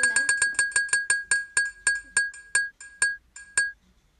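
Spin-the-wheel game's ticking sound effect: a rapid run of bright, clinking ticks that slow steadily as the wheel coasts to a stop, the last tick coming near the end.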